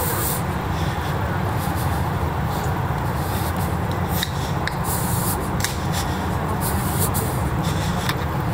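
Steady city street ambience with a low rumble and a few faint scattered ticks.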